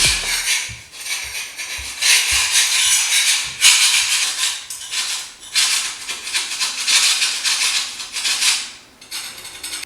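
Shaker-like swishes repeating about once a second, with a few soft low thumps in the first few seconds and no melody: a percussion-only passage of background music. The swishes fade out near the end.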